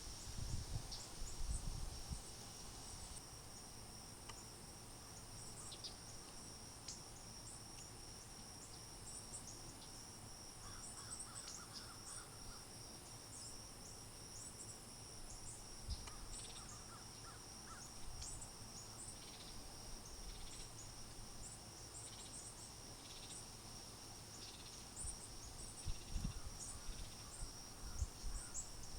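Insects trilling: a continuous, steady high-pitched drone, with many short high bird chirps scattered over it and a few low rumbles of wind on the microphone.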